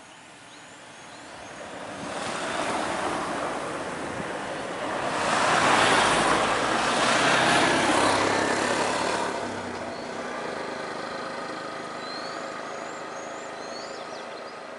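Road vehicles passing close by: engine and tyre noise swells up, is loudest in the middle, then fades back to a steady engine hum. A few faint bird chirps near the start and end.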